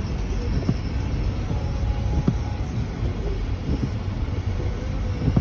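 A car heard from inside its cabin while driving in a snowstorm: a steady low rumble from the engine and road, with a few faint ticks.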